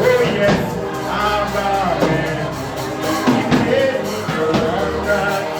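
Live gospel worship music: a band with drum kit playing while a singer's voice glides and sustains long notes over it.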